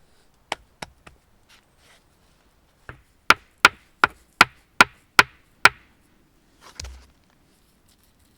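Sharp chopping strikes on wood: three scattered blows, then a steady run of seven hard strikes at about two and a half a second, and a duller thump near the end.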